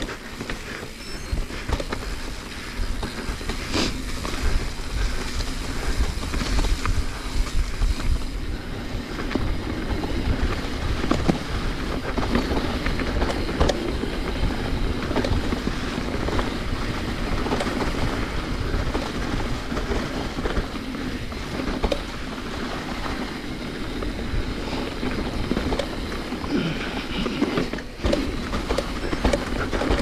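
Mountain bike ridden along a forest trail: continuous rolling rumble from the tyres and frame, with frequent rattling knocks as it goes over the rough ground.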